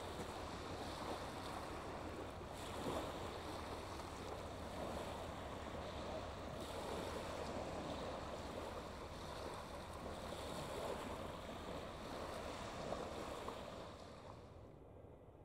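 Small waves washing onto a shingle beach, a steady wash of surf that swells and eases; it fades out near the end.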